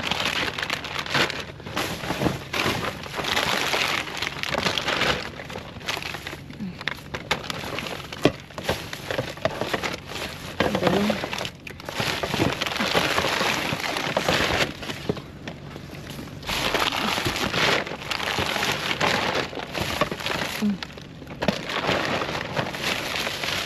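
Plastic bags, foil snack wrappers and cardboard rustling and crinkling as gloved hands rummage through a dumpster full of discarded packaging, in irregular bursts with short pauses.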